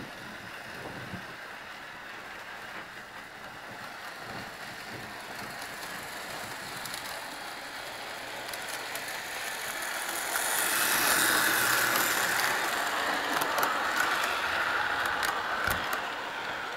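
Model GO Train running along its toy track: a steady whir of its small motor and wheels, growing louder about ten seconds in, with light clicks near the end.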